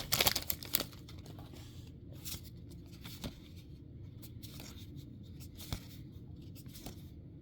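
A Magic: The Gathering play booster pack wrapper being torn and crinkled open in the first second, then scattered soft ticks and rustles as the cards are handled.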